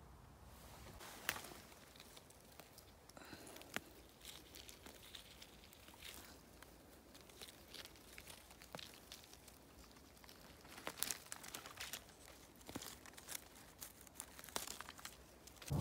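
Faint, scattered rustling and small crackles of moss, twigs and dead leaves on the forest floor as a hand picks yellowfoot mushrooms, with a cluster of sharper crackles near the end.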